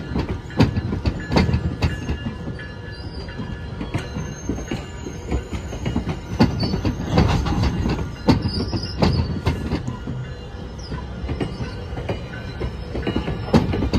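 GO Transit bilevel passenger coaches rolling slowly past on yard track, their wheels clicking and knocking irregularly over rail joints over a low rumble, with some high wheel squeal around the middle.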